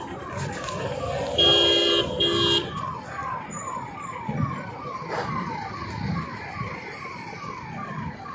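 An emergency vehicle siren cycling in quick falling sweeps, about two and a half a second. A vehicle horn honks twice loudly about a second and a half in.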